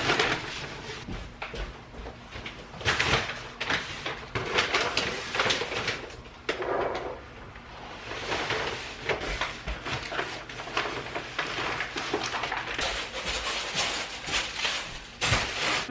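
Household handling noise: a busy run of knocks, clicks and rustling, with cupboard- or drawer-like bumps, and no steady machine sound.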